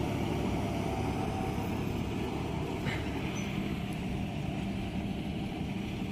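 John Deere 5405 tractor's common-rail diesel engine running steadily under load as it pulls a rotavator through a flooded paddy field.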